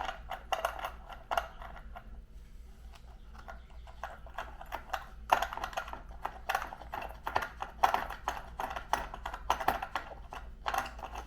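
A small drill bit being worked through the holes in phosphor bronze wiper strips into wooden supports: irregular sharp clicks and short scraping bursts, with no steady motor whine.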